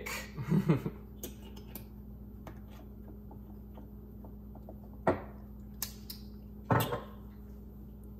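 Bottles and bar tools being handled on a countertop during cocktail-making: scattered faint clicks, then two sharp knocks about a second and a half apart, over a steady low hum.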